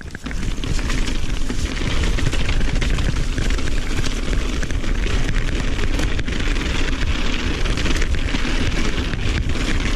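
Wind buffeting a mountain bike's action-camera microphone, with the tyres rolling over a gravel trail and the bike rattling on a fast descent. It rises sharply in the first second as the bike picks up speed, then stays loud and steady, full of small clicks.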